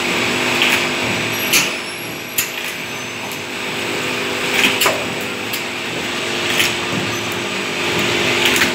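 Automatic juice filling machine running: a steady motor hum, with a short clack and hiss every second or two as it cycles.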